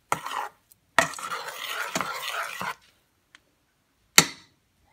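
A metal spoon stirring thick blended pumpkin soup in a stainless steel pot, scraping and swishing in two spells, then a single sharp knock near the end.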